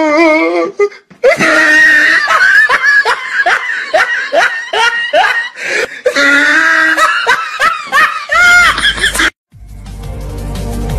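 Loud, high-pitched laughter in rapid, repeated bursts that cuts off abruptly near the end. Bass-heavy electronic music with a steady beat starts right after it.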